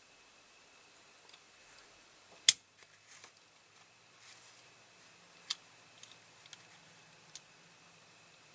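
Sharp clicks and taps of small parts and tools being handled while a die-cast toy car is glued back together. One loud click comes about two and a half seconds in, then two smaller clicks later on, with faint ticks between, over a faint steady high whine.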